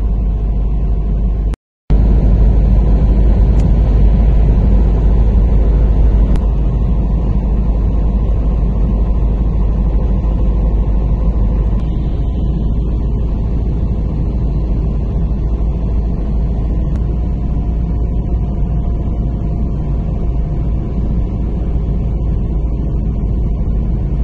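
Steady road and engine rumble of a car driving along a highway, cutting out completely for a moment about two seconds in.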